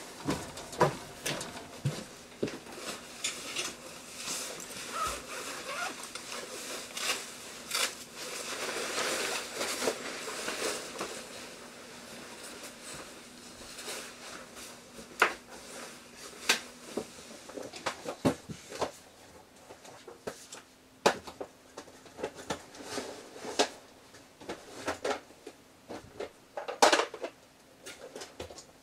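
Someone unpacking luggage: rustling of a bag and clothing, with scattered sharp clicks and knocks from clothes hangers, cupboard fittings and items being set down, over a faint steady hum.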